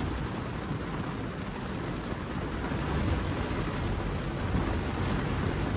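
Hard rain falling on a Tesla Model 3's roof and windshield, heard inside the cabin, with steady tyre and road noise underneath; it gets a little louder about three seconds in.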